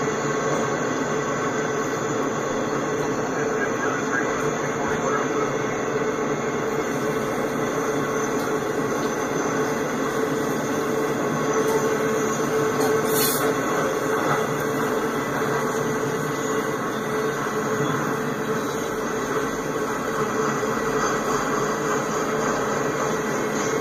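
Intermodal freight cars loaded with highway trailers rolling past on a curve: a steady rumble of steel wheels on rail, with a constant squeal from the wheels running through the curve.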